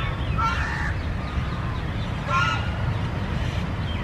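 Domestic geese honking twice, about half a second in and again about two and a half seconds in, over a steady low rumble.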